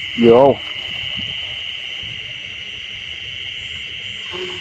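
Steady chorus of night insects, crickets, a continuous high-pitched trill that holds level throughout.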